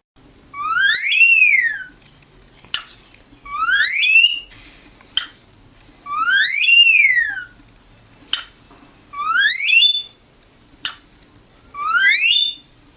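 A parrot gives a loud whistled call five times. Each call swoops up in pitch and falls back, like an alarm or siren, and sharp clicks come between the calls.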